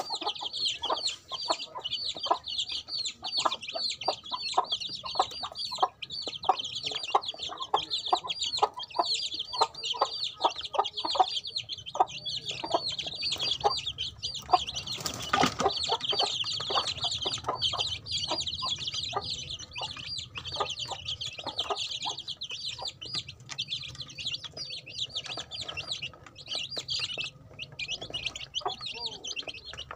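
A brood of chicken chicks peeping nonstop, many high chirps overlapping, with quick taps of beaks pecking at feed in a tray. A brief sharp knock about halfway.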